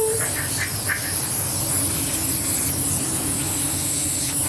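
Compressed air hissing from an air blow gun nozzle, blowing wet effect paint into swirls on a guitar body. The hiss eases after about a second and comes back strong near the end, over a steady low hum.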